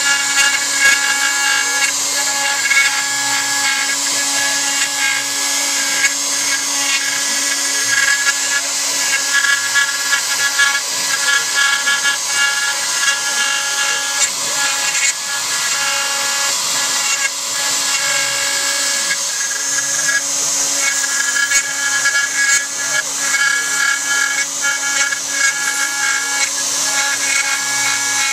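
A CNC router's spindle runs while its eighth-inch ball-nose bit carves into pine. It makes a loud, steady whine with a hiss of cutting wood, and higher tones break off and return every second or so as the machine works.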